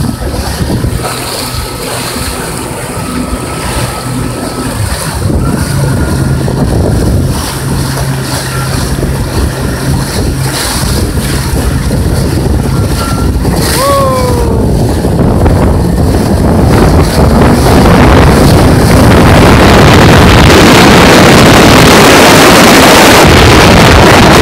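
Jet ski engine running steadily under way, with wind rushing over the microphone. A brief falling whine comes a little past halfway. After that the wind noise swells and covers the engine.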